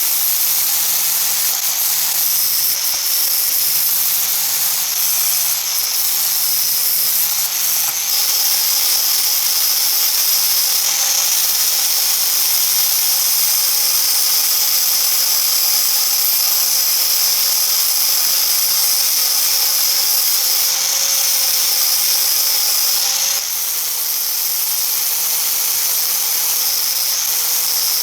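A high-speed rotary power tool running steadily with a high-pitched whine, cleaning up and polishing sandblasted vise parts; its level drops slightly about 23 seconds in.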